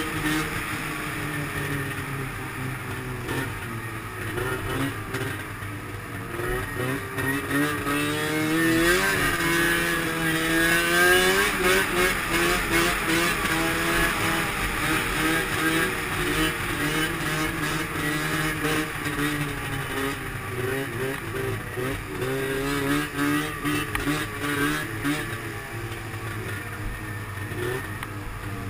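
Arctic Cat M7 snowmobile's two-stroke twin engine running under throttle, its pitch repeatedly climbing and falling as the rider opens and eases the throttle.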